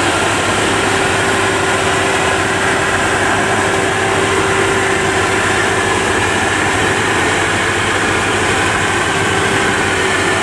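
WD102PRO rice combine harvester running steadily under load while cutting and threshing rice. The engine and machinery make a continuous drone with a steady hum through it.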